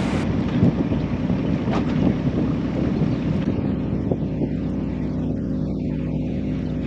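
A sailboat's engine running steadily while motoring along, a low even hum, with some wind noise on the microphone.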